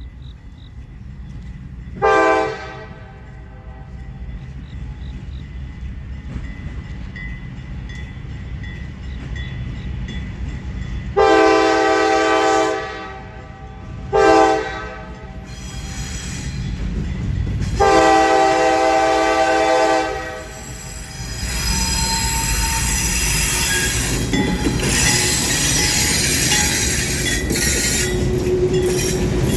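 Locomotive air horn sounding four blasts: a short one, a long one, a short one and a long one. Then the CSX train rolls past with a heavy rumble and high-pitched wheel squeal, which builds toward the end.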